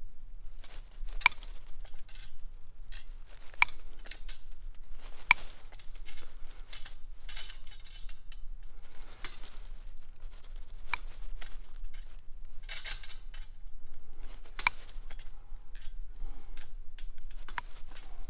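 Long-handled crimping tool squeezing a splice sleeve that joins two barbed-wire ends, worked across the sleeve one bite at a time. Each bite gives a sharp metallic click, about six a few seconds apart, with softer handling rustle between them.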